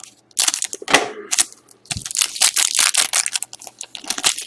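Wrapper of a hockey trading-card pack crinkling and tearing as it is opened by hand, in two long rustling stretches with a light thud in between.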